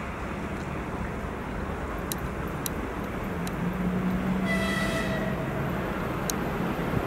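ChS7 DC electric locomotive with a passenger train approaching, a steady rumble growing slightly louder. A short horn blast of about a second sounds a little past halfway.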